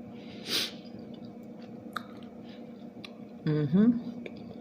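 A person chewing food with small mouth clicks. There is a short breath about half a second in and a brief voiced sound near the end.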